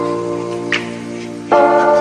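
Background music: sustained chords, with a new, louder chord coming in about one and a half seconds in.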